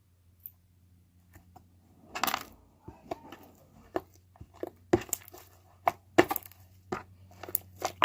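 Slime being mixed by hand in a container: a short rustling burst about two seconds in, then quick, irregular sharp clicks and pops, about three a second.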